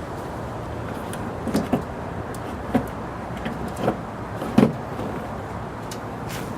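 A handful of short clicks and knocks from handling parts while a headlight bulb is fitted into its housing, over a steady low hum.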